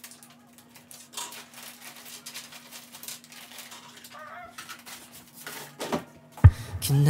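Small wrapped sweets being set down and spread out on a desk: crinkling wrappers with light clicks and taps, over a faint steady hum. One heavier thump near the end.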